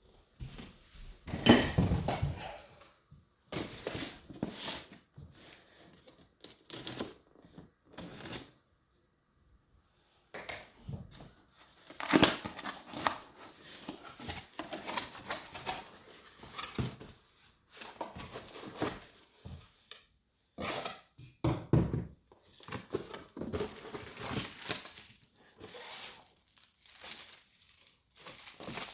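Cardboard and plastic packaging being handled and opened: irregular rustling, crinkling and tearing with scattered knocks, and a pause of about a second and a half near the middle.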